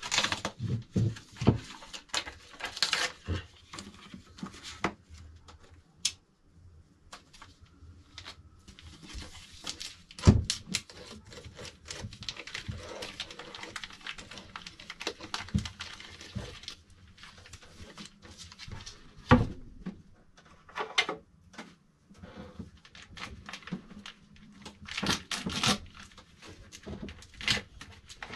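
Unboxing handling of a 3D printer's cardboard box and plastic and foam packing: rustling, scraping and scattered clicks and knocks, with a louder thump about ten seconds in and another near two-thirds of the way through.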